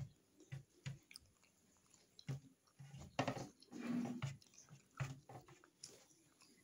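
Close-miked wet chewing and mouth sounds of eating soft rice and kadi by hand, with scattered small clicks and lip smacks and a louder run of chewing about three seconds in.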